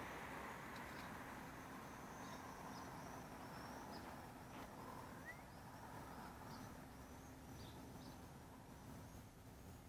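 Faint outdoor ambience with a small bird chirping repeatedly, short high chirps about once a second.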